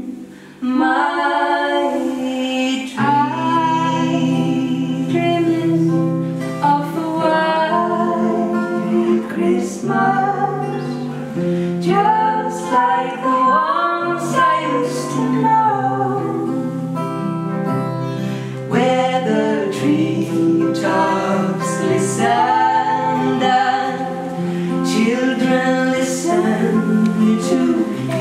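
Two women singing together, accompanied by two acoustic guitars, after a brief dip right at the start.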